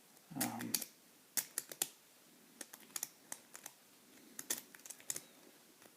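Triple-peak lock-pick rake worked slowly in a Yale padlock's keyway: a string of small, irregular metallic clicks and scrapes as the rake passes over the pin tumblers. There is a brief low hum of a voice near the start.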